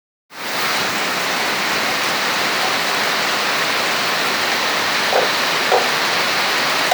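Heavy rain pouring down steadily, with two brief faint sounds about five seconds in.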